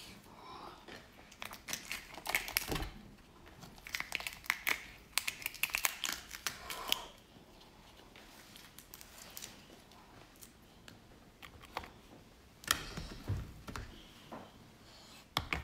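Cooked shellfish shell cracking and crackling as it is broken and peeled away from the meat by hand. It comes in dense bursts of crackles for the first half, goes quieter, then gives a few sharper cracks near the end.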